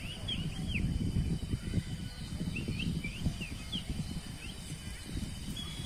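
Bird calls: runs of short, arched chirps, several in quick succession near the start and again around the middle, then a longer drawn-out note near the end, over a low rumbling noise.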